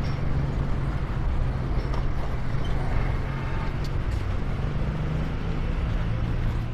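Super Power Cheetah 110cc motorcycle engine running steadily at low speed in slow traffic, heard from on the bike over a haze of road and wind noise.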